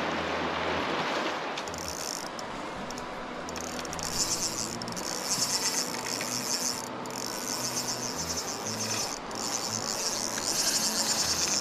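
Drag of a Shimano Vanford 3000 spinning reel buzzing in rapid clicks as a hooked steelhead runs and strips line. It starts about a second and a half in and pauses briefly twice, over the rush of the river.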